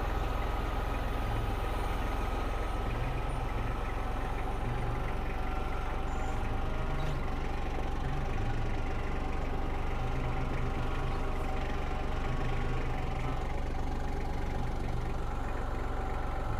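Eastonmade 22-28 log splitter's engine running steadily.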